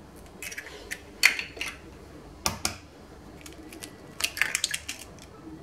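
Eggs being cracked on a glass mixing bowl: a few separate sharp taps and cracks of eggshell on glass, then a quick cluster of clicks near the end as the second egg is broken open.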